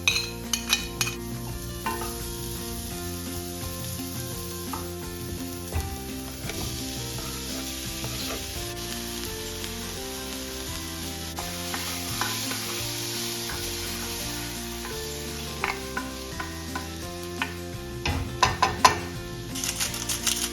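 Omelette egg sizzling in a hot frying pan, with a few sharp clicks of a utensil against the pan in the first second and again near the end.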